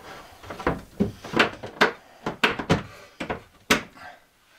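A wooden pantry cabinet being handled as its door is refitted and a slide-out shelf is worked past it: a quick, uneven string of about nine sharp knocks and clicks.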